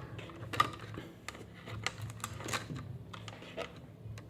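Irregular light clicks and taps of small tools handled on a TV circuit board, a few to the second, over a faint steady low hum.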